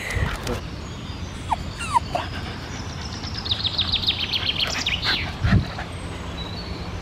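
A young terrier gives two short whines, about one and a half and two seconds in, over a steady low rumble.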